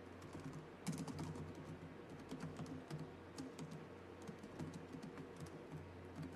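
Laptop keyboard being typed on: a faint run of quick, irregular key clicks starting about a second in, over a steady low hum.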